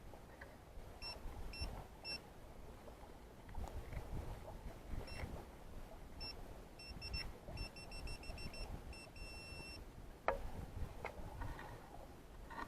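A metal-detecting pinpointer beeping in short high beeps of one steady pitch. At first it beeps a few at a time, then in a quicker run about eight seconds in that ends in one longer tone as it closes on a buried metal target. Soft digging and scraping in soil goes on underneath, with two sharp knocks about ten seconds in.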